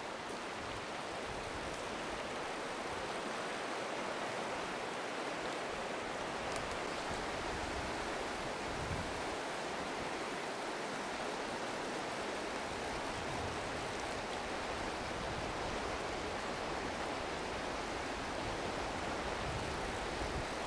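River water running steadily over a stony bed: an even, unbroken rushing hiss.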